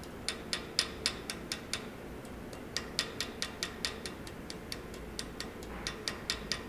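A small jeweller's hammer tapping lightly and quickly on the end of a metal rivet wire, about four taps a second with a couple of short pauses. The wire rests on a steel rod clamped in a vise, and the taps are peening it out into a mushroom-shaped rivet head.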